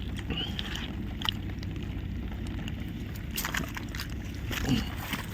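Steady low wind rumble on the microphone, with scattered light clicks and knocks.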